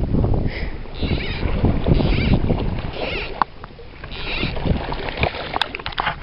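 Water splashing and sloshing from wading in a shallow river, in short splashes about once a second, with wind rumbling on the microphone at the start.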